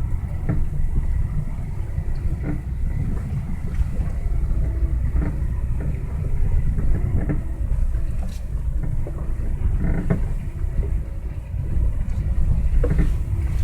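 Lada Vesta SW front suspension squeaking in short, irregular creaks every second or two over a steady low road rumble from the moving car.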